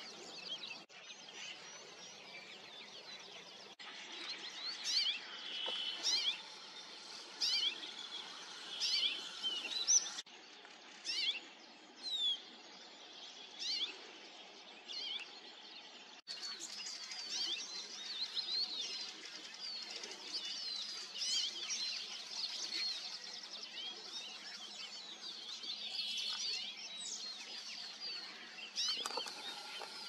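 Several songbirds singing at once: overlapping songs and calls made of many short, high, sweeping notes.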